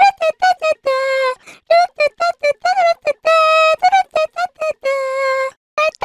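Anime girl meme voice: a high-pitched girlish voice singing quick "da da da" syllables in a bouncy, jumping melody. Most notes are short, several a second, with three longer held notes between them and a brief break near the end.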